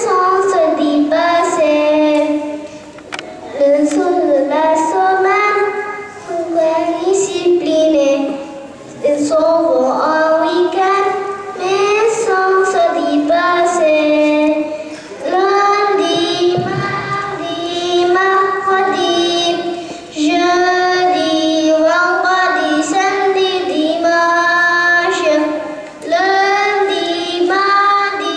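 Young children singing a simple melody together, their voices in unison.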